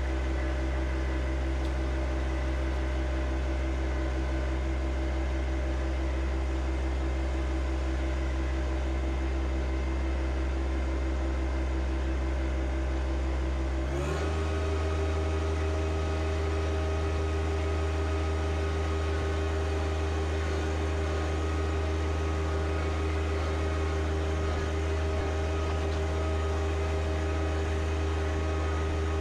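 John Deere 1025R compact tractor's three-cylinder diesel engine running steadily. About halfway through, the engine speed steps abruptly up to a higher, steady pitch, as when the throttle is raised.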